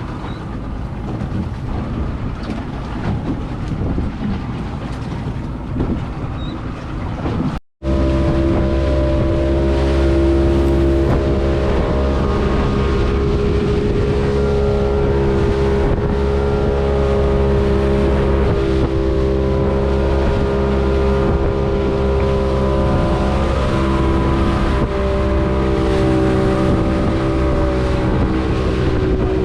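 Wind and water noise for the first several seconds, then, after a brief cut, a motorboat's engine running steadily at a constant pitch.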